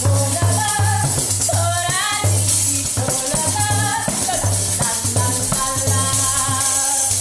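Sicilian folk song: a woman singing over a tamburello, a frame drum with jingles, that is shaken and struck so its jingles rattle steadily, with a low bass pulsing about twice a second underneath.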